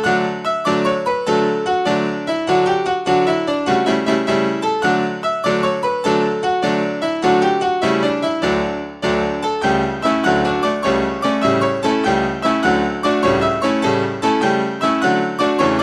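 Piano music: a quick, even stream of struck notes with a steady rhythm.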